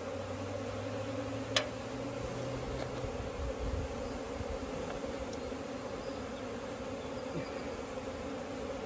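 Steady buzz of a honey bee swarm flying around an open bin it has just been shaken into, with one sharp tick about a second and a half in.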